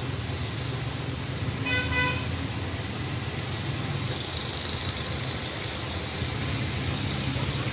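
Steady low background rumble and hiss, with one short horn toot about two seconds in.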